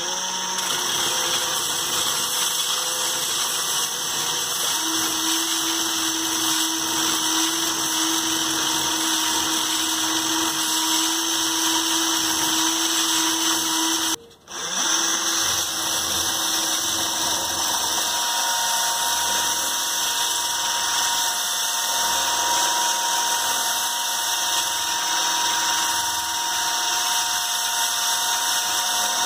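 Cordless drill motor running steadily at speed; it stops for a moment about halfway through and starts up again.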